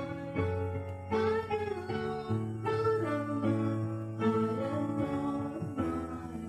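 A song: acoustic guitar playing chords under a singing voice.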